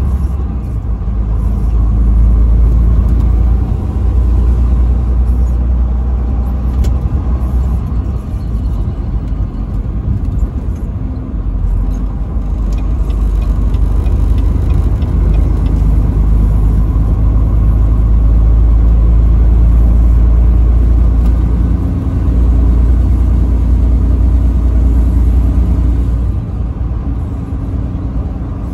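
Truck driving at highway speed: a steady, loud low rumble of engine and road noise.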